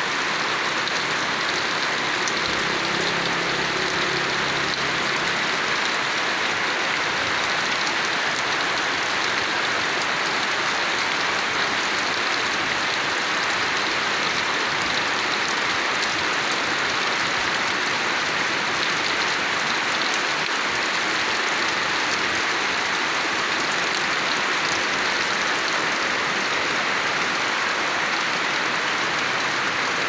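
Steady rain falling on leaves and bare wet ground, an even hiss that doesn't let up.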